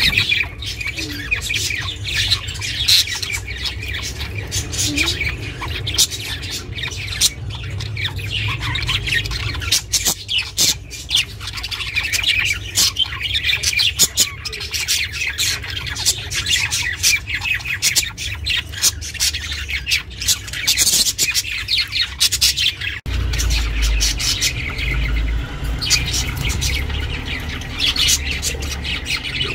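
Budgerigars chirping and squawking in a rapid, continuous stream of short high calls. A low steady hum runs underneath and changes abruptly about 23 seconds in.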